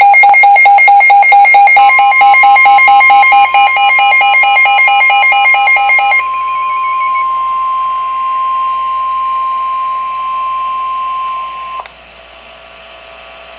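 NOAA Weather Radio warning alarm tone, a steady single high tone that signals a warning is about to be read. For the first six seconds a rapid pulsing electronic alert beep sounds over it. The steady tone then runs on alone and cuts off sharply near the end, leaving faint radio hiss.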